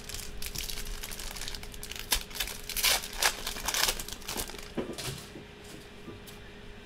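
Foil wrapper of a football trading-card pack being torn open and crumpled by hand, a crackling crinkle for about five seconds, loudest in the middle, then dying away as the cards come out.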